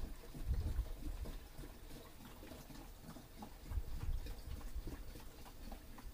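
Faint glugging and trickling as pink antifreeze is poured from a plastic jug into the disconnected cooling hoses of a MerCruiser 5.0 L V8 to winterize it. There are uneven low swells and a few light plastic ticks.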